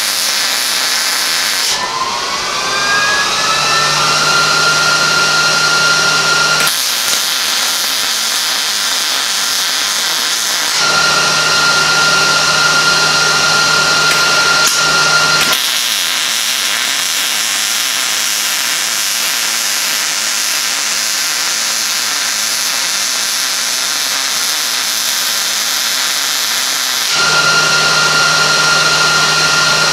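A MIG welding arc from a Miller Multimatic 215 running 0.030 wire with 75/25 argon-CO2 gas, making a continuous noisy crackle as beads are laid. A steady high whine with a low hum rises in pitch about two seconds in, then cuts out and returns a few times.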